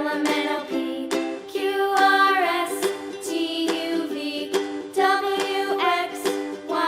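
Background music: a light tune of plucked notes with a melody line over them, at an even beat.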